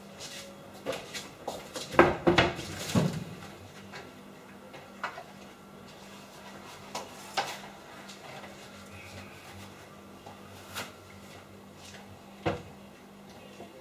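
Irregular knocks and clatter of objects being handled, a quick cluster about two seconds in, then single knocks every couple of seconds, over a faint steady hum.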